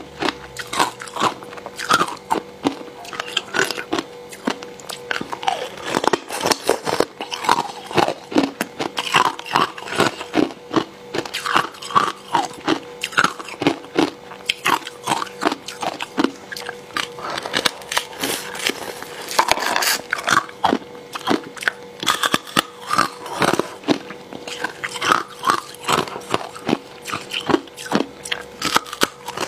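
A person biting and chewing thin, hard sheets of ice close to a clip-on microphone: sharp, crisp crunches and cracks, several a second.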